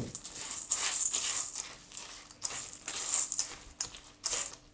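Silicone spatula stirring chocolate-coated puffed rice into melted chocolate in a stainless steel bowl, in repeated strokes.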